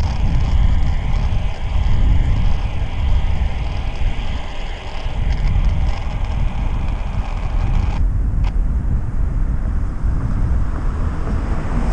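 Wind buffeting a moving camera's microphone, with road rumble from riding along a road. A higher hiss drops away about eight seconds in, leaving the low rumble.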